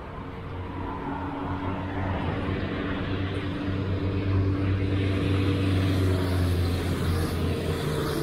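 A large engine running at a steady pitch, growing louder over the first few seconds and then holding.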